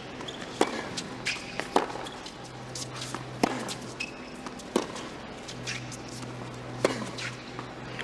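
Tennis ball struck back and forth by racquets in a rally: about five sharp, loud hits, one every one to two seconds, with softer knocks between them, over a low steady hum.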